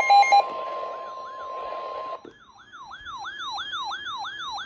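NOAA Weather Radio 1050 Hz alert tone, steady, with rapid beeping over its first half second. The tone cuts off about two seconds in and gives way to a fast electronic siren wail, about three sweeps a second, announcing the next warning.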